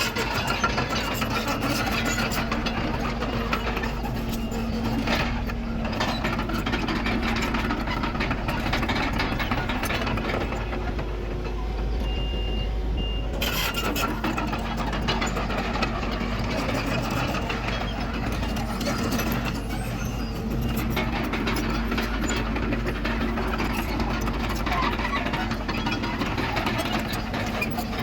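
Komatsu D31PX bulldozer's diesel engine running steadily under load, with a lot of clattering from the tracks and the work. A short high beep sounds twice about halfway through.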